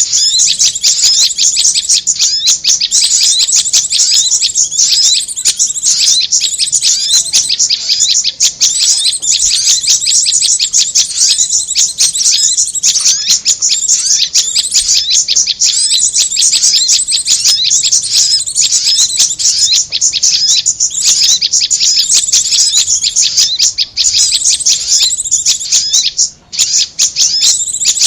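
Bird-lure recording of korlap and prenjak (prinia) calls: loud, rapid, continuous high-pitched chirping and trilling with hardly a pause, a dense layering of calls used to draw wild birds in.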